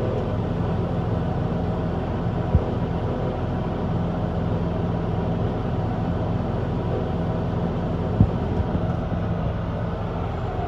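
Tractor and combine harvester engines running steadily as the combine unloads winter barley into the grain trailer. Two short knocks sound, one about two and a half seconds in and one about eight seconds in.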